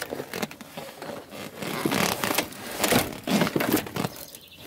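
Irregular rustling and scraping, with a few sharper knocks, from a hand working a station-wagon fold-down seat's vinyl upholstery and hinge mechanism.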